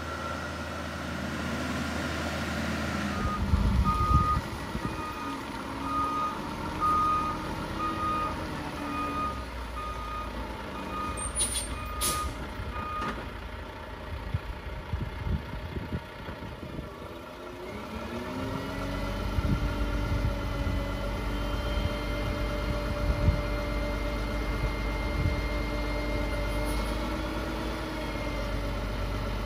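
Diesel dump truck reversing with its backup alarm beeping repeatedly, plus a short air hiss near the end of the beeping. After the beeping stops, the engine revs up and holds steady as the bed is raised to tip a load of gravel.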